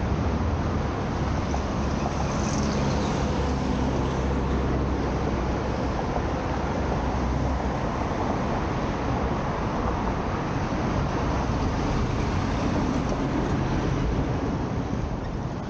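Steady city street traffic noise, with vehicles running and a low engine hum that is strongest in the first half.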